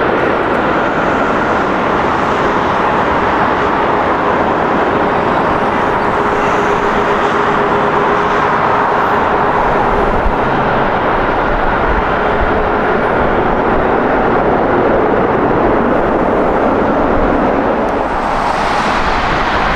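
Jet airliner engines running, a loud steady rush of noise with faint steady whining tones; a brief brighter hiss comes in near the end.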